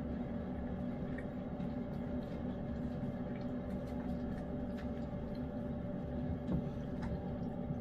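A cat eating wet food in gravy: faint, scattered soft licking and chewing clicks over a steady low hum.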